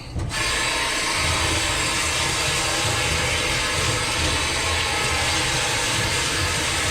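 Water running hard and steadily from a kitchen tap, turned on abruptly just after the start.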